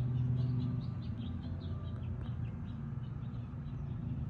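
Bird chirping in quick short calls, several a second, over a steady low hum.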